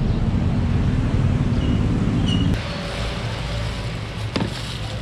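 Steady low rumble of outdoor street noise that cuts off abruptly about halfway through, giving way to a quieter kitchen background with one sharp click near the end.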